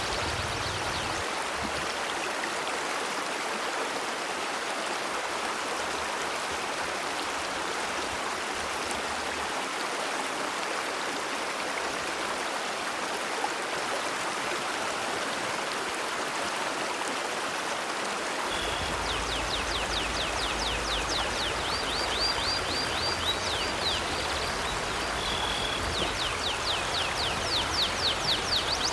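River water flowing steadily, with a bird chirping in quick rapid series over the water during the second half.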